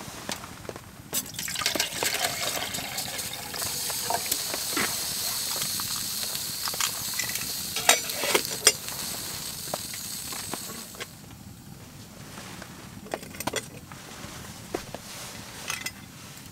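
Water heating in a stainless steel camping mug on a hot wood-burning tent stove, hissing steadily, with two sharp metal clinks about eight seconds in as a lid goes onto the mug. The hiss dies down about eleven seconds in, leaving light scattered ticks.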